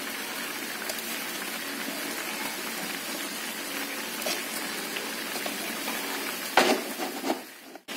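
Ground spice paste frying in oil in an aluminium wok, a steady sizzle and bubbling. A few brief knocks come about six and a half seconds in, and the sound cuts off suddenly just before the end.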